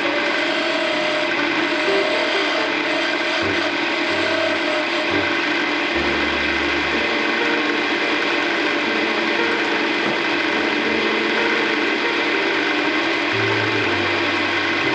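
Wood lathe running with a tool scraping the spinning wood: a steady rasping noise over the even hum of the machine.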